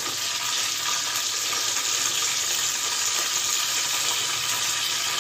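Curry leaves sizzling in hot oil: a steady, even frying hiss.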